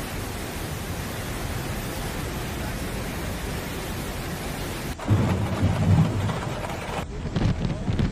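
Steady rushing noise of a fast, muddy floodwater torrent. About five seconds in it changes abruptly to louder, gusting storm noise with low rumbles, from a typhoon's wind and rain.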